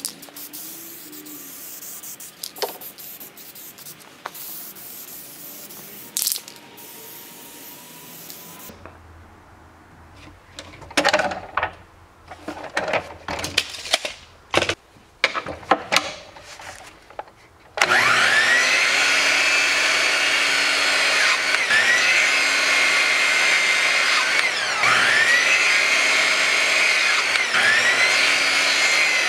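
Miter saw running and crosscutting small zebrawood blocks, its motor whine climbing back up in pitch four times, about every three seconds. Before the saw starts, a run of sharp knocks and clatter.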